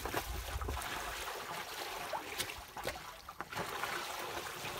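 Seawater splashing and trickling at the stern of a slowly moving sailboat, with a few sharper small splashes.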